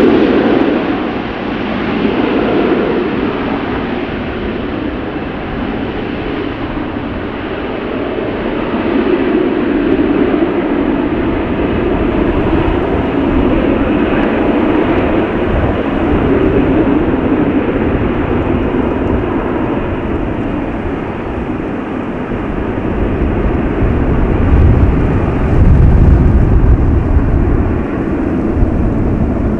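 Boeing 707 jet engines running loud and steady. The higher hiss slowly fades over the half-minute, and a heavier low rumble swells near the end.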